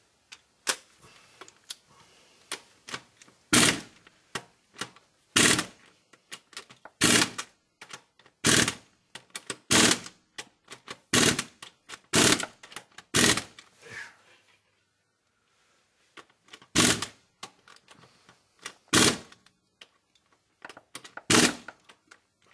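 Hand wrench tightening the flywheel bolts to torque: quick runs of small ratchet clicks, broken by a loud sharp click every one to two seconds, with a short pause about two-thirds of the way through.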